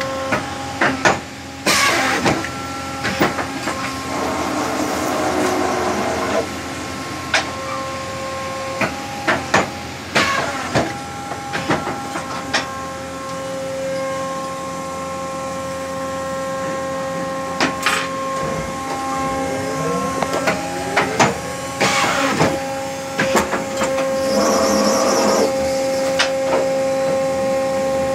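Schneider Senator programmable paper guillotine running with a steady multi-tone hum, with frequent sharp knocks and clunks as paper stacks are pushed along the table and the machine works. A few brief rushing noises come at intervals.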